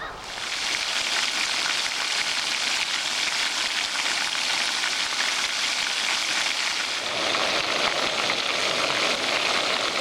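Fish and bacon sizzling in a frying pan: a steady, dense hiss.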